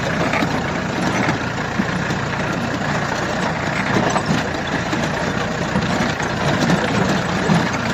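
Jeep engine running steadily as the jeep drives along a rough dirt track.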